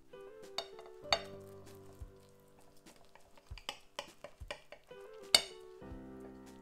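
A metal knife and fork clinking and scraping against a plate while cutting an egg omelette, several sharp clinks with the loudest a little past five seconds in. Soft background music runs underneath.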